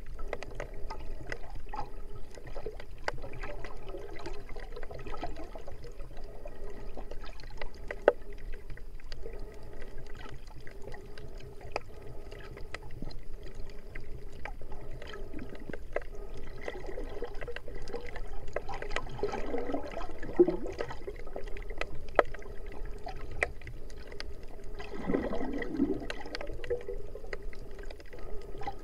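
Underwater sound picked up by a submerged action camera: a steady watery wash with scattered sharp clicks, and louder gurgling twice, about two-thirds of the way through and near the end.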